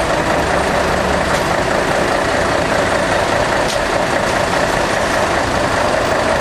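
Steady running noise of a heavy vehicle's engine idling.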